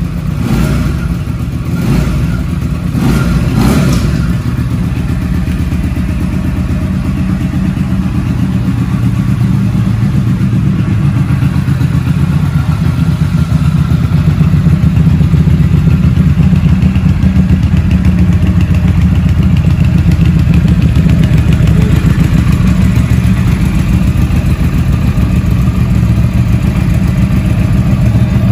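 Benda BD300's 298 cc water-cooled V-twin engine running: a few short throttle blips in the first four seconds, then a steady idle.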